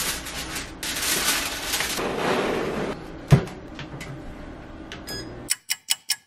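Foil rustling and a baking dish and wire rack clattering in a countertop convection oven, then the oven's glass door shutting with a sharp knock about three seconds in. Near the end comes a rapid even series of short clicks, about six a second.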